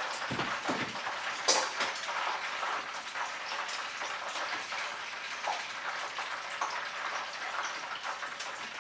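Hot frying oil sizzling and crackling steadily in a pan on the stove, with a sharp clink of a utensil on cookware about a second and a half in.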